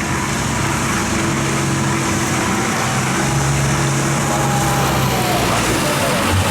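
Diesel engine of a motor river barge running hard under heavy throttle, a loud steady drone with a low hum.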